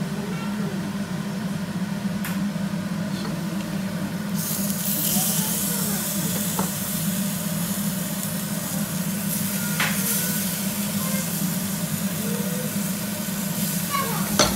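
Haddock fillets sizzling in a frying pan; the sizzle jumps louder about four seconds in as the lid comes off, over a steady low hum. A few light clicks of the lid and pan, the sharpest near the end.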